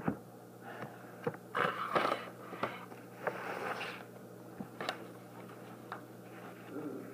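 Handling noise from a handheld camera: scattered clicks, scrapes and rustles as it is moved and uncovered, over a steady low hum.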